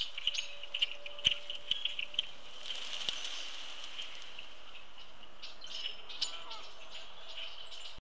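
Flock of red-winged blackbirds and grackles at a platform feeder: a steady chatter of calls, with sharp taps and clicks of feet and bills on the tray in the first two seconds. About three seconds in comes a short rush of wings as the flock takes off, followed by a few scattered calls.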